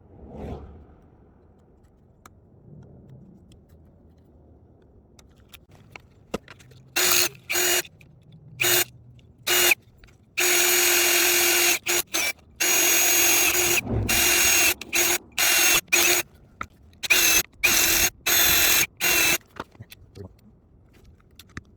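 Power drill run in a string of short trigger bursts with two longer runs of about two seconds each, at a steady pitch while running, as the rail-joint hardware is worked. A soft thump comes about half a second in.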